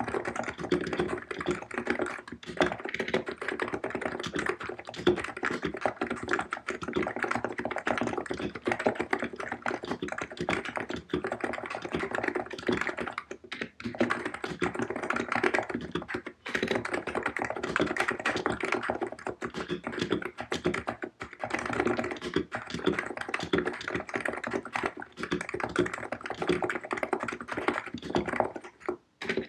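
Continuous fast typing on a COX Empress electro-capacitive (contactless) keyboard with 50 g switches: a dense run of keystrokes, broken by short pauses at about 13, 16 and 21 seconds and near the end.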